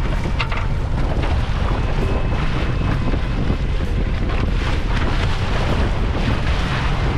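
Wind buffeting the microphone on a fishing boat at sea, over a steady low rumble of the boat and the water.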